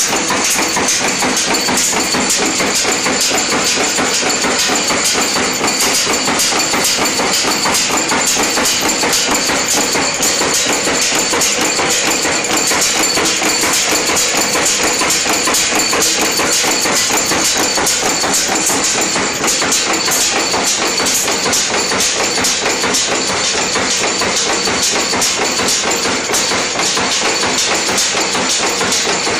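Jignesh Industries N-6 wire nail making machine running at speed: a loud, steady, rapid clatter of repeated cutting and heading strokes as it turns wire into nails.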